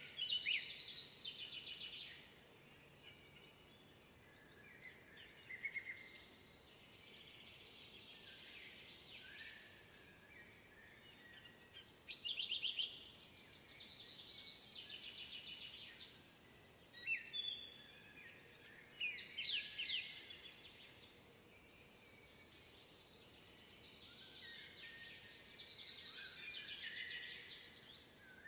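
Songbirds singing in woodland: short phrases of quick notes and trills, a new phrase every few seconds, over a faint steady hiss.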